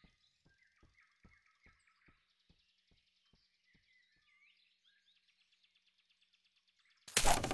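Faint forest ambience of small birds chirping, with soft regular ticks about three a second in the first half. Near the end a short, loud burst of noise cuts in suddenly.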